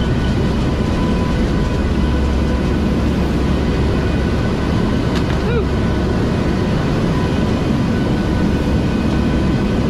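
Steady drone of the four turboprop engines and propellers heard inside the cabin of a NOAA WP-3D Orion hurricane-hunter aircraft in flight: a strong low hum with a few faint steady whines above it.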